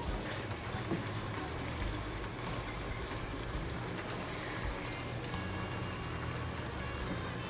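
Thickened honey-ginger sauce sizzling and bubbling steadily in a nonstick pan around a fried pompano, with a wooden spatula lightly scraping and stirring now and then.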